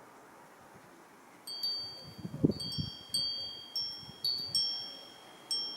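Wind chime ringing: irregular strikes at a few fixed high pitches, each ringing and dying away, starting about a second and a half in. A brief low rumble comes under the chimes around two and a half seconds in.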